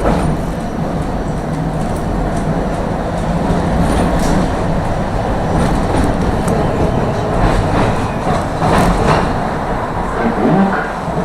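Tram car running along the rails, heard from inside the car: a steady low rumble of wheels and motor with scattered short clicks.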